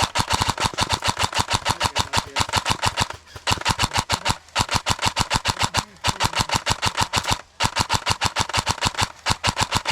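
Airsoft electric gun firing full-auto in long bursts of about a dozen shots a second, with a steady whine under the shots and brief pauses between bursts.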